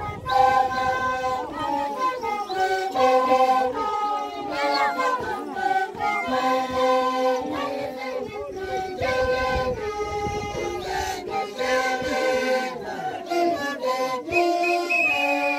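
A group of Andean wooden flutes playing a carnival tune together, with several held notes sounding at once, over drums beating steadily.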